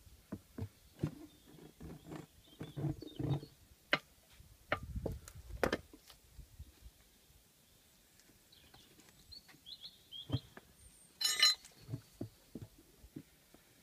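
Steel tyre levers working a motorcycle tyre bead off an alloy rim: a run of knocks, scrapes and dull thumps, then one loud ringing metal clank of lever on lever near the end.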